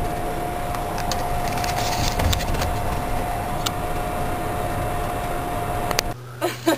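Battery-electric pickup truck driving at road speed, heard from inside the cab: steady tyre and road noise with a thin steady whine over it. About six seconds in it cuts off abruptly to a low hum and a couple of knocks.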